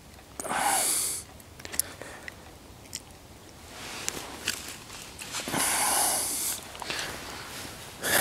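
Two long breaths blown out close to the microphone, about five seconds apart, with a few small clicks between them.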